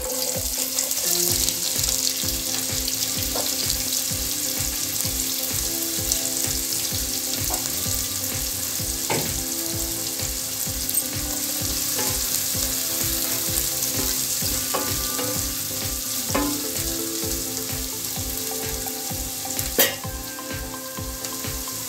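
Chopped onions sizzling as they fry in hot oil in a nonstick pot, a steady hiss with a few sharp knocks of a spatula against the pan.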